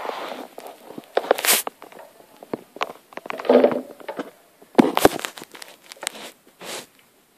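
Kittens scrambling around a carpeted scratching-post house on a wooden floor: irregular scuffs, scratches and light knocks, with louder rustling bursts about a second and a half in and again around five seconds in.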